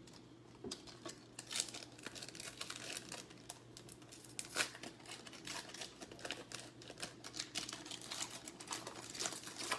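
Crinkling and crackling of a foil trading-card pack wrapper being opened and handled: a run of irregular crackles with one sharper snap about four and a half seconds in.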